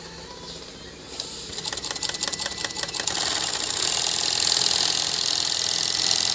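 Industrial 5-thread overlock (edging) machine starting to sew: a fast ticking that speeds up over a couple of seconds, then the steady high buzz of the machine stitching fabric at full speed.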